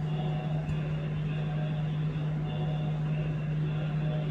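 A steady low hum, unchanging in pitch and level.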